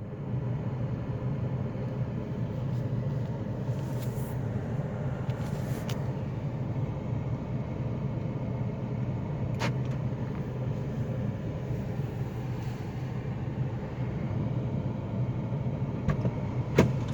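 Steady rain: an even wash of noise with a low rumble underneath, broken by a few sharp taps, the loudest near the end.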